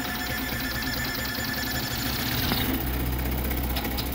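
Vz235 CoreXY 3D printer printing at very high speed and acceleration: the stepper motors buzz in a rapid, jerky flutter as the toolhead darts back and forth, over a steady low hum. About two and a half seconds in the high buzzing stops, as the toolhead halts, while the low hum goes on.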